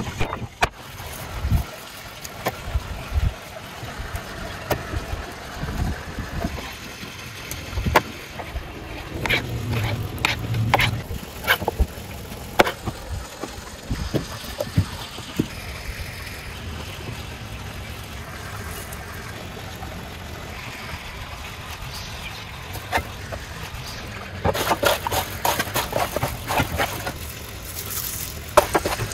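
Food preparation on a wooden board: scattered sharp knocks of a cleaver chopping lamb and a knife cutting vegetables, over steady background noise. A quick run of knocks comes near the end.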